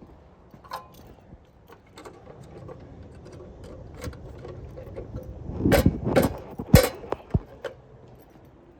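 Scattered clicks and knocks, with a short burst of louder clatter and knocks about six seconds in.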